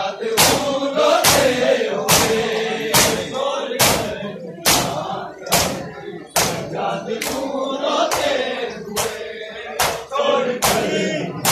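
Crowd of Shia mourners chanting a noha in unison while beating their chests (matam), a sharp slap a little more than once a second under the massed chanting.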